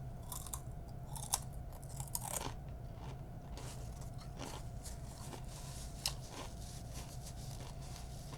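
Biting into and chewing a Takis Fuego rolled corn tortilla chip: several sharp, crisp crunches in the first two seconds or so, then softer chewing that fades out after about six seconds.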